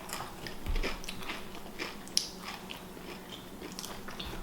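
Close-miked eating: irregular wet chewing with small crunches and bites, a few of them louder, about two seconds in.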